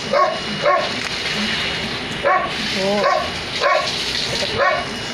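A dog barking repeatedly, about six or seven short barks spaced half a second to a second apart.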